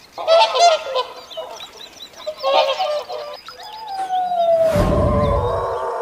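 Black swan giving two short runs of honking, bugle-like calls in the first half. From about halfway a single long, slowly falling wolf howl begins and carries on, with a brief loud low rumble around five seconds in.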